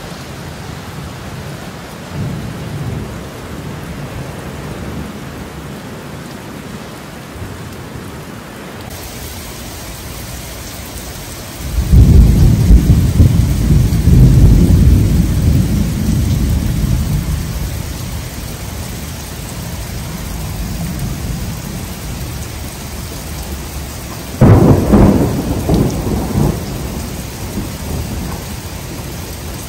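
Heavy rain falling steadily on wet pavement and hedges. A long, low rumble of thunder comes in suddenly about 12 seconds in and fades slowly over the next several seconds, and a second, sharper thunderclap with rumbling follows about 25 seconds in.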